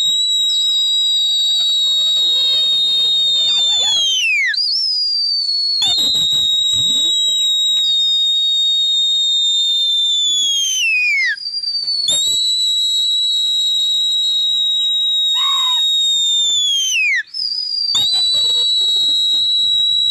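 Long high whistles blown to drive a flock of pigeons circling overhead: four whistles, each held steady for about four seconds and falling in pitch as it ends.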